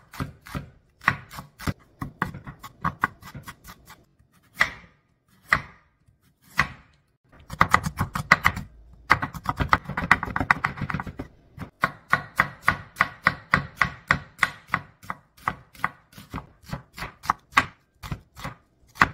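Chef's knife slicing vegetables on a wooden cutting board: repeated sharp knife strikes against the board. After a few sparse, isolated strikes, the chopping turns into a fast, dense run and then a steady even rhythm of several strikes a second.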